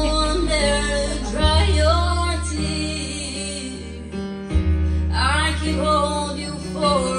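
A song playing: singing over guitar, with held bass notes that change every second or two.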